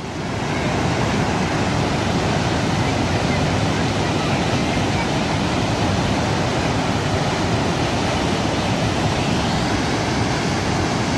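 Steady rush of floodwater pouring over the spillway of an overflowing lake, swelling up within the first second.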